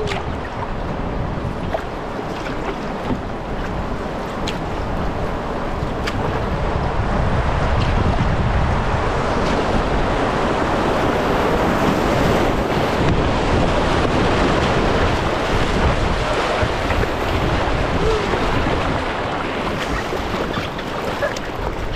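Rushing river water and waves around a moving canoe, with wind buffeting the microphone; the water grows louder from about eight seconds in and eases a little near the end.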